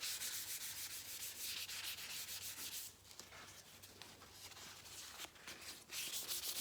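Sandpaper rubbing on the clear-coated paint of a Norton Commando fuel tank in quick back-and-forth strokes, sanding the orange peel out of the clear coat. The strokes stop about three seconds in, go faint, and start again near the end.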